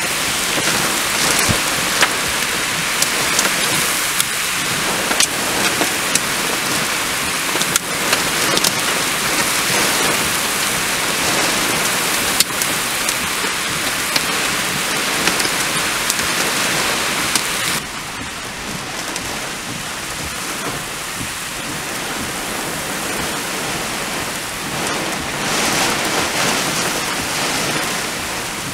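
Heavy thunderstorm rain falling steadily: a dense hiss with scattered sharp ticks of drops striking close by. It turns a little softer about two-thirds of the way through.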